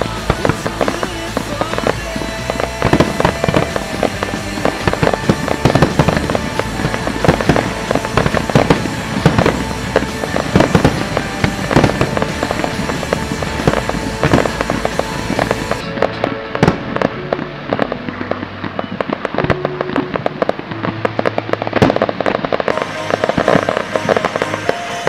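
Fireworks going off: many sharp bangs and crackles in quick succession, over a music soundtrack played with the show.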